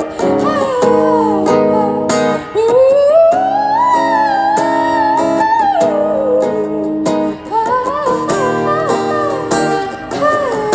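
Acoustic guitar strumming chords under a singer's wordless vocal runs that slide up and down in pitch.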